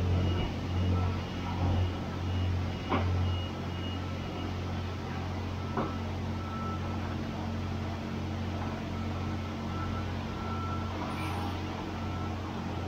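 Steady low machine hum of the self-serve car wash equipment while the foam brush is running, with soft scrubbing of the brush on the car's paint. Two light clicks, at about three and six seconds in.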